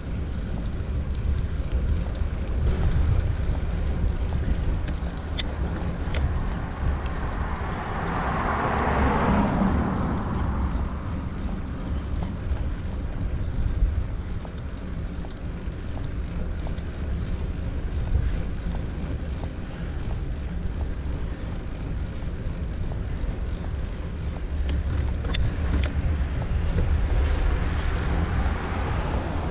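Wind rumbling on the microphone while riding along a road, with a car passing about nine seconds in, its sound swelling and fading, and another approaching near the end.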